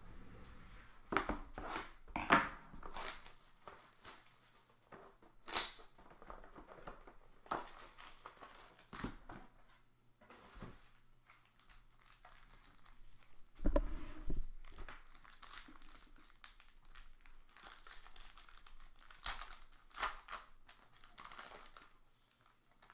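Plastic shrink wrap being torn off a sealed box of trading cards, then a foil card pack crinkled and ripped open. An irregular crackling and tearing, with the sharpest snaps about two seconds in and again about halfway through.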